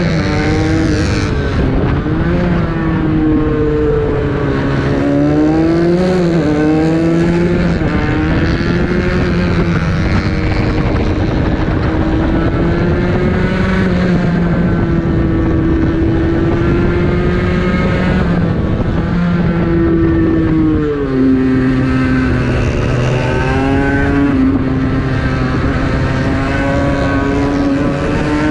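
Aprilia RS 125 motorcycle engine revving hard, its pitch climbing and dropping again and again through gear changes and braking, over wind rush on the microphone.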